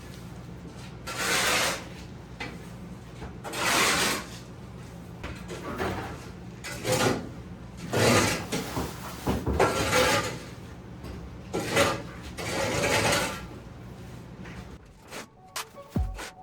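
Loose brick and concrete rubble being scraped up and dumped, one rasping, rattling scrape every second or two. A low engine hum runs underneath and stops near the end.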